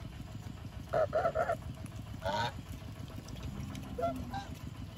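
Domestic geese honking: a quick run of three honks about a second in, another honk just after two seconds, and softer calls about four seconds in.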